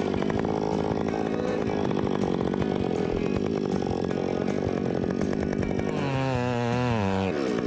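Chainsaw cutting through wood under load, its engine note rough and held down. About six seconds in it runs free at high revs with a wavering pitch, then the revs drop sharply near the end.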